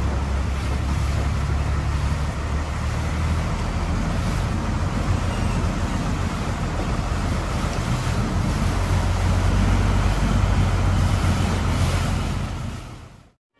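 Longtail boat's engine running steadily under way, with water rushing past the hull; fades out near the end.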